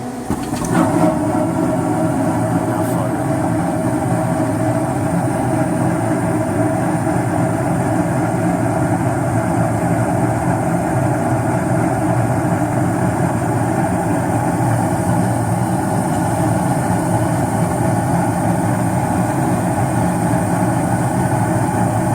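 Carrier single-stage gas furnace running: a steady mechanical rumble with a low hum that steps up louder about half a second in, then holds even.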